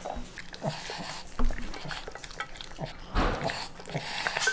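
A dog eating greedily from a stainless steel bowl: wet, sloppy chewing and licking with snuffling breaths, and a few knocks of the muzzle against the bowl, the loudest about a second and a half in.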